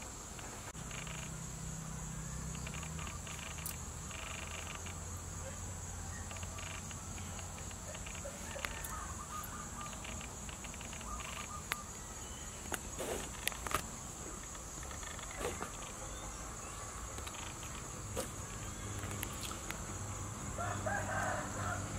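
A steady high-pitched insect chorus, with a few short clicks and scrapes of a metal spoon on a plate as fish is eaten, most of them just past the middle.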